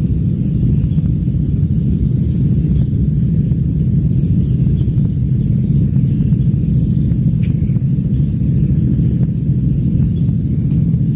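Outdoor ambience: a steady low rumble and a continuous high-pitched drone of insects.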